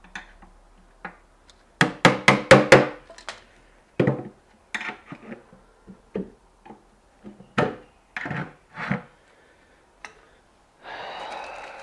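Sharp knocks and strikes on the parts of a dismantled front-loading washing machine: a quick run of about six blows around two seconds in, then scattered single knocks, and a short scraping rush near the end.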